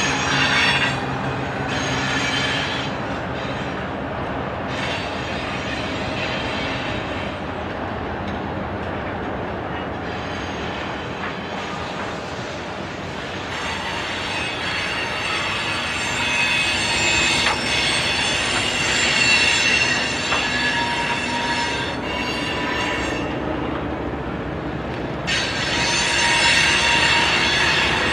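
Covered hopper cars of a freight train rolling steadily past. High-pitched wheel squealing comes and goes over the rolling noise, strongest in the middle and near the end.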